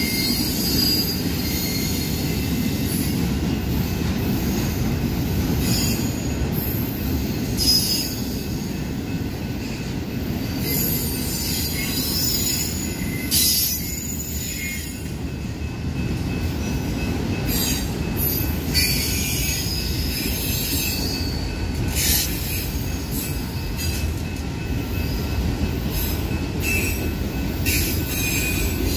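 Freight cars of a Union Pacific manifest train rolling past, a steady low rumble of wheels on rail, with high-pitched wheel squeal rising and fading every few seconds.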